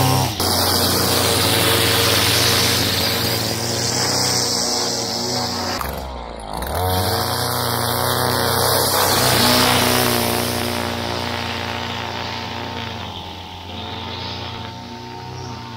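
Two-stroke trimmer engine driving an Edgit Pro edger attachment, running at high revs. Its pitch dips and climbs back about six seconds in, and it fades over the last few seconds as it moves away.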